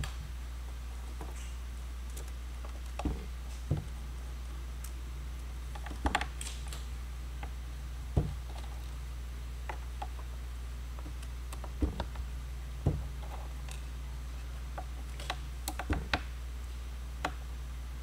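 Irregular light clicks and taps of a small Phillips screwdriver turning out screws from the base of a Panasonic Toughbook CF-30 laptop, over a steady low hum.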